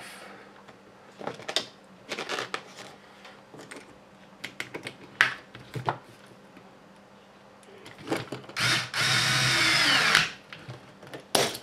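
A small handheld electric screwdriver runs steadily for about two seconds near the end, driving a screw into an RC car kit's suspension link. Before it come scattered light clicks of small plastic and metal parts being handled.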